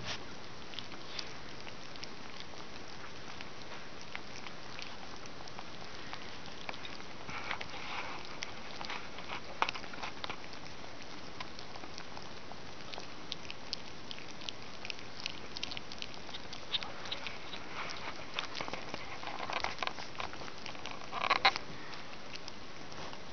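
Collie puppies eating soft weaning food from a plate: a stream of small wet smacking and licking clicks, their first solid meal. A short, louder burst of sound comes near the end.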